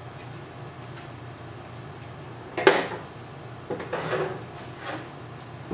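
A few brief rustles and knocks of fabric and tools being handled on a table, the loudest and sharpest about two and a half seconds in, then a few softer ones, over a low steady hum.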